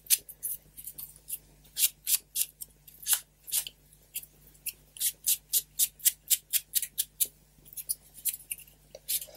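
Short, crisp scratchy strokes of a foam ink applicator dabbed and rubbed along the folded edges of a paper leaf. The strokes come unevenly at first, then quicken to about four or five a second.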